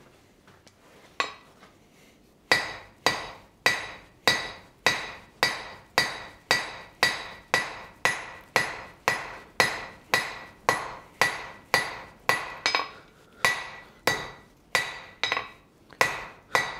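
Blacksmith's hand hammer striking a red-hot steel bar on an anvil to draw it out into a taper: a steady run of blows about two a second, each with a ringing note. It opens with a single blow, the steady run starts about two and a half seconds in, and there is a brief pause near the end.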